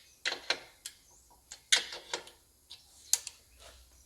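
A series of sharp, irregular clicks and knocks, about seven in four seconds, from hand work at the CNC plasma table.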